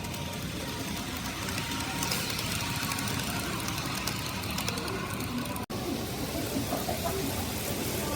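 Micro Ace Hankyu 2300 series model train running on the layout track, a steady whirring rumble, with a brief dropout about six seconds in.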